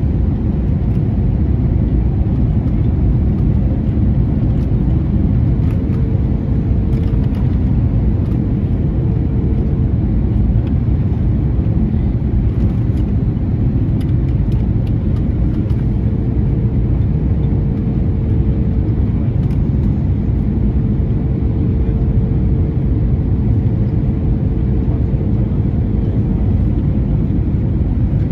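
Steady loud rumble of airliner cabin noise inside an Airbus A321neo, with a faint steady hum that comes and goes twice.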